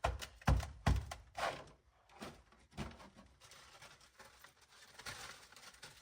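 Dry ice being spread by hand over sound deadener on a car floor pan: a quick run of knocks and scrapes in the first second and a half, then scattered quieter knocks.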